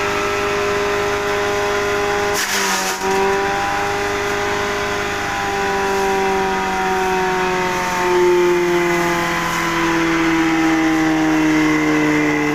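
Grass chopper driven by a 1 HP electric motor, running and chopping elephant grass. It gives a steady whine whose pitch drifts slowly lower, with a short crunch about two and a half seconds in.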